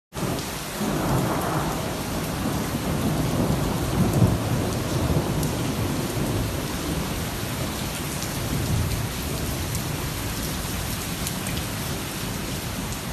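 Heavy rain pouring steadily under rolling thunder, the low rumble swelling and peaking about four seconds in.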